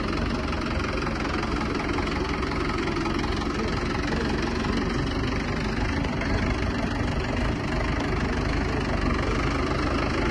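Swaraj 843 XM tractor's three-cylinder diesel engine running steadily under load as it pulls a tine cultivator through the soil.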